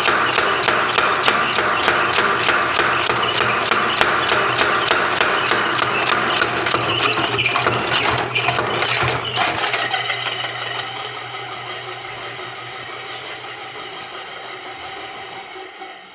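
A 30-pound Kerrihard mechanical power hammer running under its 1.5 hp electric motor, the ram striking in a rapid, even rhythm, with a belt-drive squeak that the owner blames on duct tape on the pulley. After about nine seconds the blows and the motor hum stop, and the machine winds down with a fading whine.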